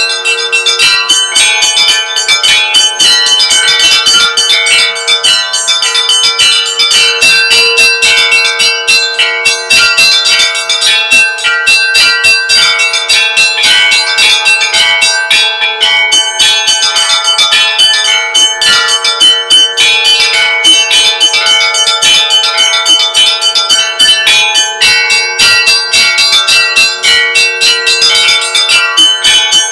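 Russian church bell ringing (kolokolny zvon): several small bells struck in a quick, unbroken rhythm over the held ring of a larger bell.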